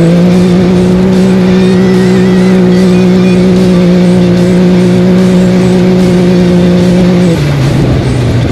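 Off-road race vehicle's engine held at steady high revs, then dropping in pitch about seven seconds in as the revs fall.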